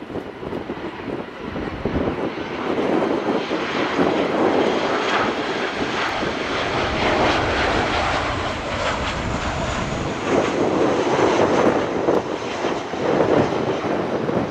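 Airliner's jet engines running as it passes close by: the noise rises about two seconds in and stays loud, with a faint high whine that slowly falls in pitch in the second half.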